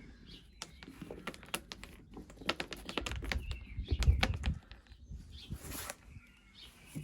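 A small bird chirping now and then over a run of irregular sharp clicks and taps, with a low thump about four seconds in.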